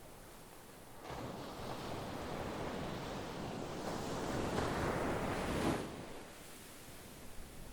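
Sea surf: a wave swells in from about a second in, grows loudest, then falls away suddenly about six seconds in, leaving a softer wash.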